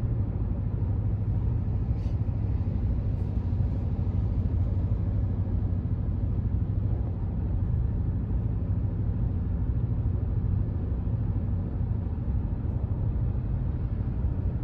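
Car driving on the road: a steady low rumble of tyre and engine noise.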